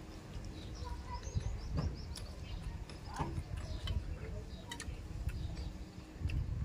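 Eating by hand: soft wet mouth sounds and small clicks of chewing and lip smacking while fish and rice are picked apart with the fingers. A small bird chirps briefly, a quick run of short high notes about a second and a half in.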